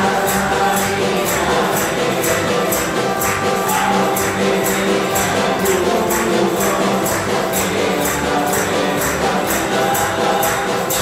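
Live band of musicians playing music for the Virgin of Guadalupe, with a steady high percussion beat of about three strikes a second over held instrumental notes.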